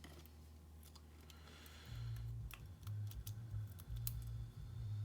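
Scattered small sharp clicks and ticks of lock pins, springs and tweezers being handled while a lock core is emptied, over a low hum that grows louder about two seconds in.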